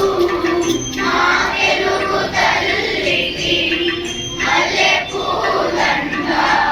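A group of children singing together in chorus, holding notes and moving from phrase to phrase.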